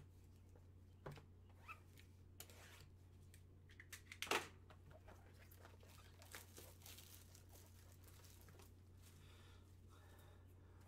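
Faint rustling, scraping and a few light knocks of cardboard trading-card boxes being handled and opened by gloved hands, the loudest knock about four seconds in, over a steady low electrical hum.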